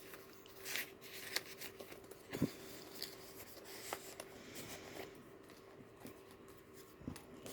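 Thin card pages of a handmade junk journal being handled and turned: scattered soft rustles and light taps, with a faint steady hum underneath.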